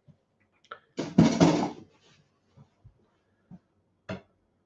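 A spoon and a plastic blender jar being handled: one loud clatter lasting under a second about a second in, a few soft knocks, and a short sharp knock near the end.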